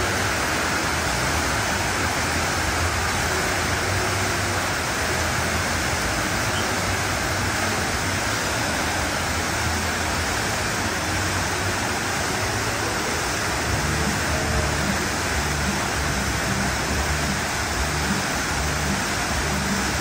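Artificial rock waterfall cascading in several tiers into a pool: a steady, unbroken rush of falling water.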